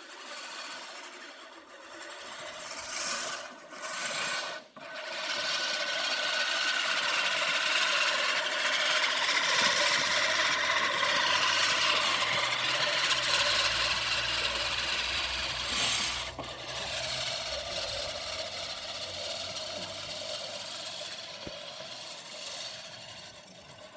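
Lawn mower being pushed through grass, cutting with a steady whirring rasp. It starts and stops a few times in the first seconds, then runs evenly.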